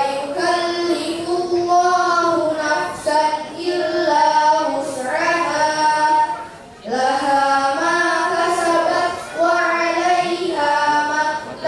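A girl's solo voice chanting a melodic line in long held notes, phrase after phrase, with brief breaths between phrases, the clearest about seven seconds in.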